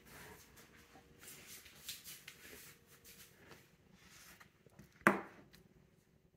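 Faint handling sounds of dishes on a kitchen counter, light rustles and small clicks, with one sharp knock about five seconds in as a plate is set down on the countertop.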